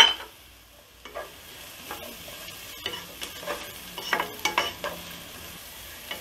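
Wooden spatula stirring and scraping chopped green bell pepper, cabbage, carrot and beans in a pan on high flame, over a steady sizzle of frying. A sharp knock comes at the very start, and a run of quick scraping strokes follows from about three seconds in.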